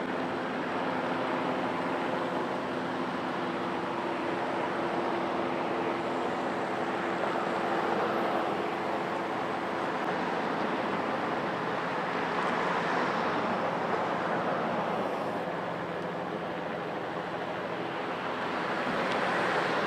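Helicopter engine and rotor noise: a steady mechanical drone with a low hum that fades about halfway through, then swells twice, the second time near the end.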